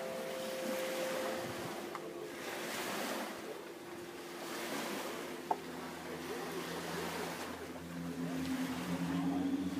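Aeolian (wind) harp strings sounding in the wind off the bay: several overlapping steady tones over wind and water noise. The higher tones fade in the first second or two and lower ones swell in near the end. A single short tick comes about halfway through.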